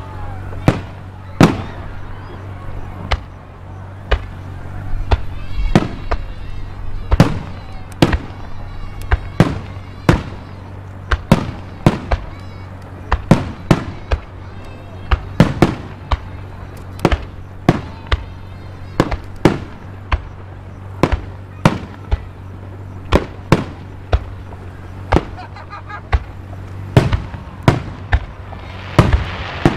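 Aerial firework shells bursting one after another, a sharp bang every second or so, each echoing briefly.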